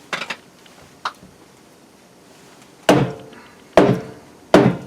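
Chopping wood: a series of sharp blows striking a tough piece, about five in all, with the last three the loudest and each ringing briefly.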